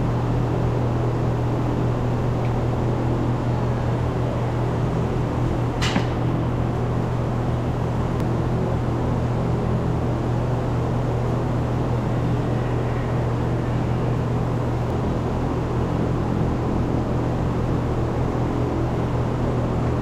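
Freightliner truck's diesel engine running with a steady, unchanging low drone. A single sharp click comes about six seconds in.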